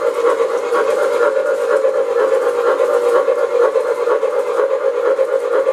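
Model train running on its layout: a steady hum with a steam-like hiss from its sound system, pulsing slightly without a break.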